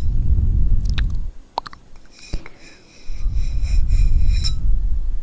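Two long, close breaths into the microphone, each a low rumble lasting one to two seconds, with a few light taps in the gap between them.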